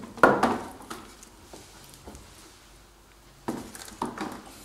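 Frozen plastic bottles being put into a plastic storage tub, knocking against its sides and bottom and against each other: one loud knock about a quarter second in, a few faint taps, then several more knocks near the end.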